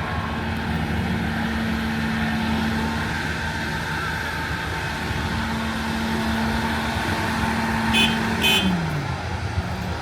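LiuGong 942F excavator's diesel engine running at a steady speed, its note dropping about a second before the end, with two short sharp knocks a little before that.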